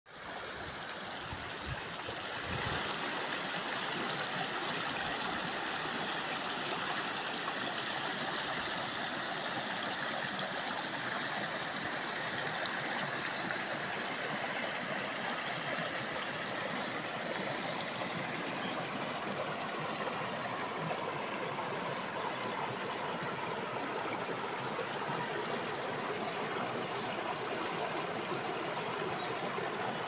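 A shallow rocky stream running over stones: a steady rush of flowing water that grows a little louder about two and a half seconds in. A few low thumps sound in the first couple of seconds.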